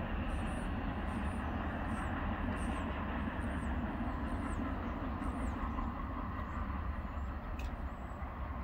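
A freight train rumbling as it moves away, the sound slowly fading, with faint high chirps repeating above it.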